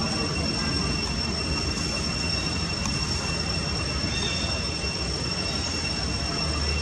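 Steady high-pitched drone of insects in the forest canopy, held on two unchanging pitches over an even background hiss.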